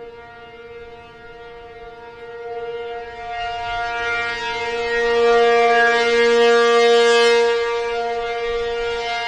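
ACA P-50 outdoor warning siren sounding a steady Alert tone: one held pitch with no rise or fall, growing louder to a peak about five to seven seconds in, then easing off slightly.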